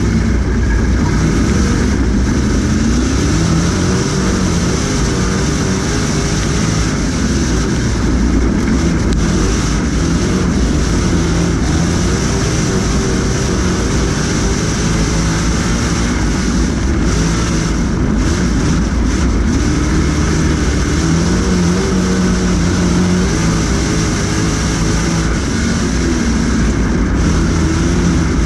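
Street stock dirt-track race car's engine heard loud from inside the cockpit under racing, its pitch rising and falling repeatedly as the driver gets on and off the throttle through the turns.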